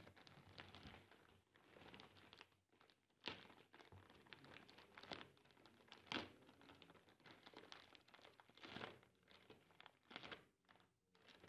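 Faint crinkling and rustling of a plastic courier mailer bag being handled and opened, in irregular bursts with sharper crackles about three and six seconds in.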